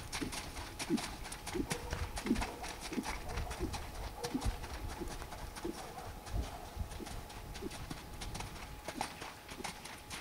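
Horse's hooves thudding on a wet sand arena in a steady stride rhythm, about one beat every two-thirds of a second, with many sharp clicks mixed in.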